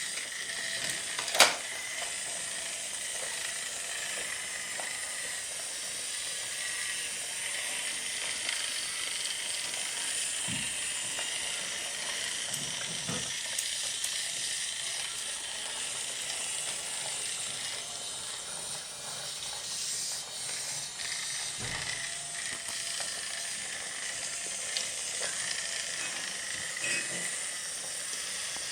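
Small electric motor and gears of a battery-powered BRIO toy train whirring steadily, with a sharp click about a second in.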